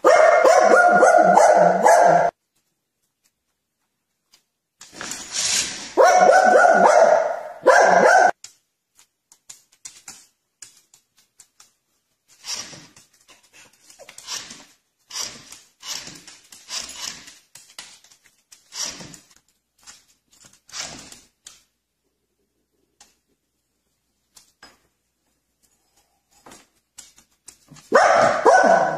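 Dog barking: loud, dense runs of barking near the start, a few seconds in and again at the end, with shorter, quieter single barks in between.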